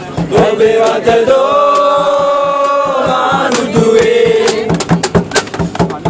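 A group of voices singing together loudly, holding one long note through the middle, over sharp beats in a quick steady rhythm of about four or five a second.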